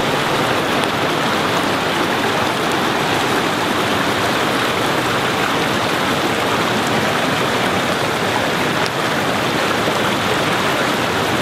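Fast-flowing rocky creek splashing over stones: a steady, unbroken rush of water.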